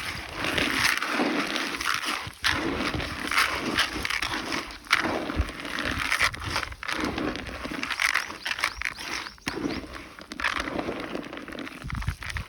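Stray dogs eating close to the microphone: irregular wet chewing, crunching and crackling.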